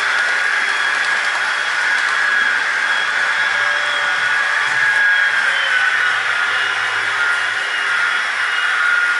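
Sound decoder of a Roco H0 model BR 232 'Ludmilla' diesel locomotive playing its diesel engine running sound through the model's small speaker as it drives, steady and thin with little bass.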